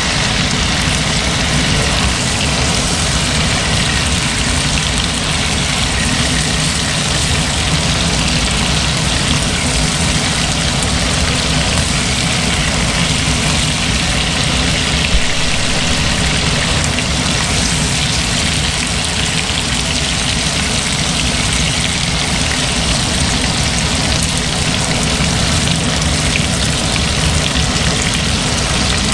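Chicken wings sizzling steadily as they shallow-fry in hot oil in a stainless steel wok, with a steady low hum underneath and a single brief knock about halfway through.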